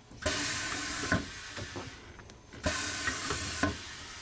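Compressed air hissing from a tyre-changing machine in two bursts, each starting abruptly with a click, the first lasting nearly two seconds and the second about a second, with sharp knocks of tools on the wheel between them.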